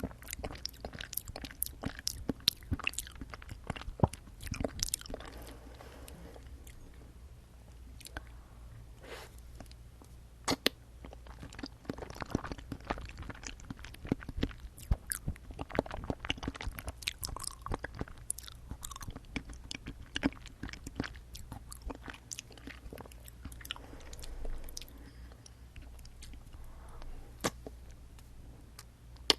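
Close-miked chewing and biting of jelly straws: irregular wet mouth clicks and squishes with occasional sharper bites, over a steady low hum.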